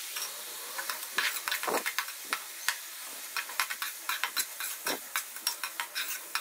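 A metal spatula stirring and scraping around a metal karahi, with irregular knocks against the pan, while shredded chicken, vegetables and spices fry with a steady sizzle.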